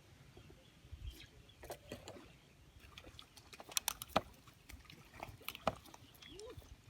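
Wind rumbling on the microphone, with scattered sharp clicks and taps, a few close together about four seconds in and again near five and a half seconds.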